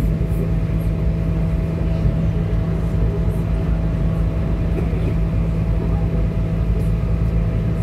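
Steady running noise inside a Northern Ireland Railways diesel multiple unit in motion: a constant low drone with a steady hum, unchanging throughout.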